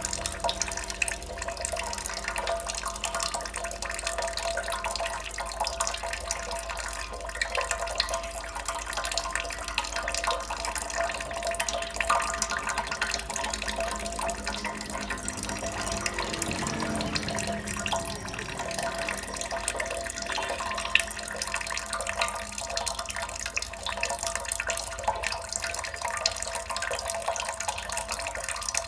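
Water drops falling in quick, irregular succession: a steady dripping and trickling of water.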